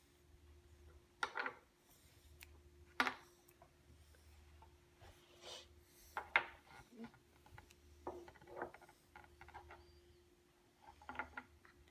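Wooden Camelot Jr. puzzle blocks being handled and set down on a wooden base and table: scattered light wooden knocks with some rubbing in between, the sharpest knock about three seconds in.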